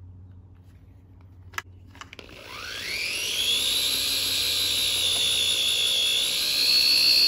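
Power drill boring into the center of a rusted, broken-off exhaust manifold stud in a 5.3 L LM7 V8's cylinder head. After a click, the motor spins up about two seconds in, its whine rising in pitch, then runs steadily under load, stepping slightly higher near the end.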